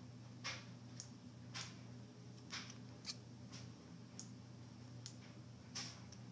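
Tabby kitten chattering at a laser-pointer dot it is stalking, a sign of its hunting excitement. The chatter comes as faint, short clicky bursts about every half second to a second, over a steady low hum.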